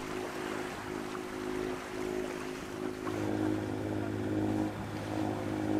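A sailboat's engine running steadily under way, its hum growing louder about three seconds in, over a steady rush of water.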